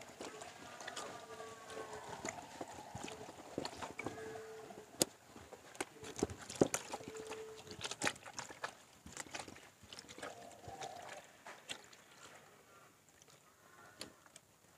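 Wet batik cloth being pushed and worked by a rubber-gloved hand in a tub of dye: irregular splashing and sloshing with scattered small knocks, growing quieter near the end.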